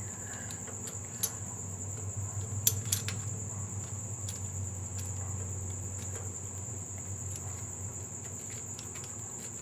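A few small metallic clicks and taps as rocker arm parts are fitted by hand onto a Ford 302 V8's cylinder head, the loudest a pair about three seconds in, over a steady high-pitched trill and a low hum.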